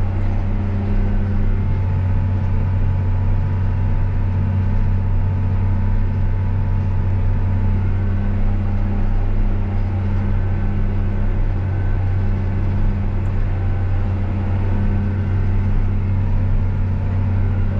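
John Deere 8RX 410 tracked tractor's six-cylinder diesel engine running steadily while pulling a compactor across a field: a constant low drone that does not rise or fall.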